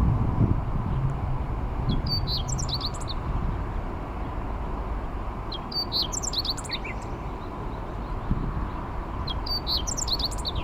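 Meadow bunting singing: three short, high, rapid song phrases about a second long, spaced roughly three and a half seconds apart, over a steady low rumble.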